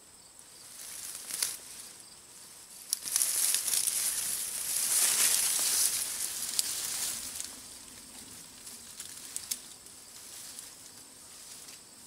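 Potato plants being pulled up out of the mulched bed by hand: leafy stems and foliage rustling and swishing, with a few sharp snaps, loudest from about three to seven seconds in.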